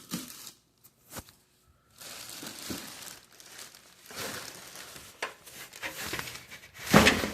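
Packaging crinkling and rustling as a PC case is handled and unwrapped, in irregular bursts with a loud rustle near the end.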